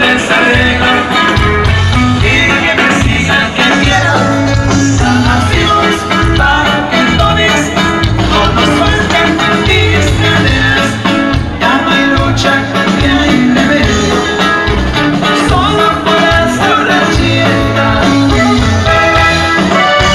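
Live norteño band music with singing, loud and steady, over a rhythmic bass.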